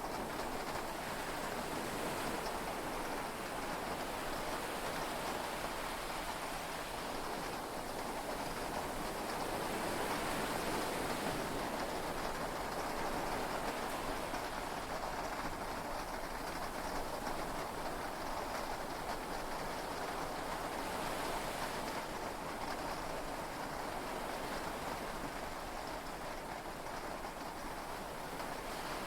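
Heavy rain falling steadily on a yacht, mixed with the wash of sea waves, heard from inside the cabin as an even hiss that swells slightly about ten seconds in.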